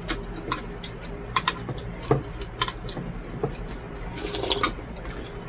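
Eating homemade cold noodles in broth with chopsticks: scattered small clicks and mouth sounds, then a short wet slurp of noodles and broth about four seconds in.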